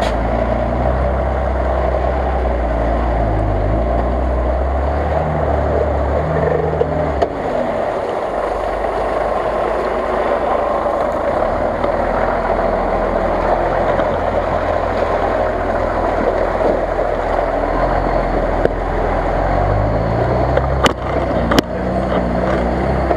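Lifted Jeep Cherokee's engine working under load as it crawls through deep mud on big mud tyres, its revs stepping up and down and climbing near the end. Two sharp knocks come shortly before the end.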